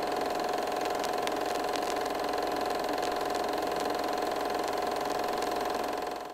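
A steady mechanical whirr with a constant hum and faint scattered ticks; it cuts off abruptly at the end.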